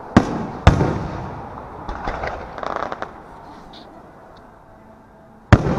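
Aerial firework shells bursting overhead: two sharp bangs in quick succession at the start, each trailing off in an echo, and a third bang near the end.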